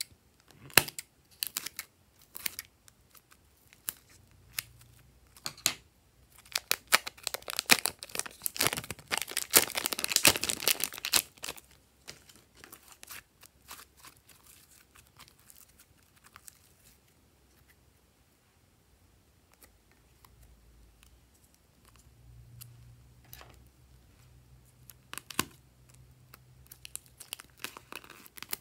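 Thin plastic piping bags full of glossy slime being snipped with scissors and peeled off the slime: crinkling, tearing plastic and sticky crackles, densest and loudest from about seven to twelve seconds in, with scattered snips and clicks otherwise.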